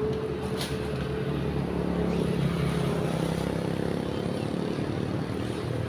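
Motorcycles passing on the road, their engines making a steady hum of traffic.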